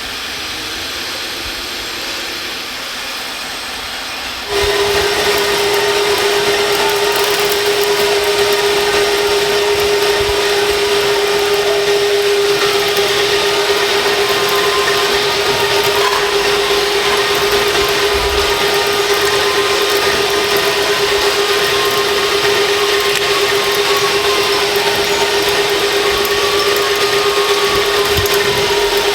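A small electric motor, such as the drive of an RC construction model, whining steadily at one constant pitch; it starts abruptly about four and a half seconds in over a quieter mechanical hum.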